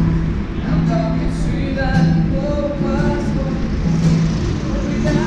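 Background music: a song with a held, stepping vocal melody.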